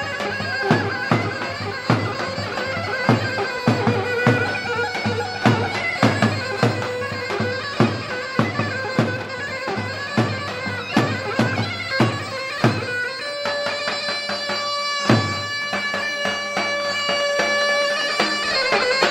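Folk wedding music: a shrill reed pipe plays a melody over steady strokes of a deep drum, about two or three a second. About thirteen seconds in the drum mostly stops and the pipe holds long steady notes, with one more drum stroke a couple of seconds later.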